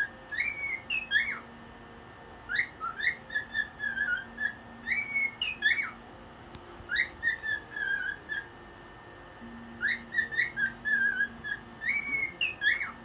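Pet cockatiel whistling its song: four phrases of short chirpy notes and quick upward-sweeping whistles, with brief pauses between them.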